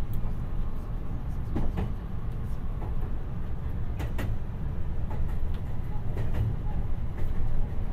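Meitetsu electric train's interior running noise: a steady low rumble with scattered sharp clicks at uneven spacing.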